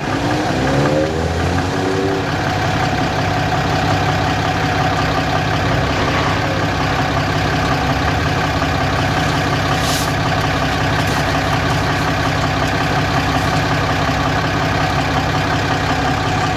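A vehicle engine running steadily, its pitch rising over the first two seconds before settling, with a short hiss about ten seconds in.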